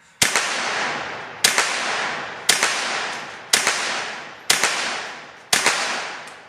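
Baikal MP161-K semi-automatic .22 LR rifle firing six shots at a steady pace of about one a second. Each crack is followed by a long echoing decay.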